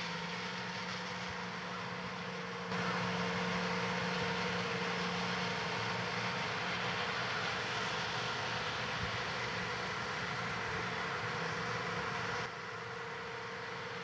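John Deere 8R-series tractors and pull-type peanut combines running at work across the field: a steady machinery drone with a constant hum. It gets louder about three seconds in and drops back near the end.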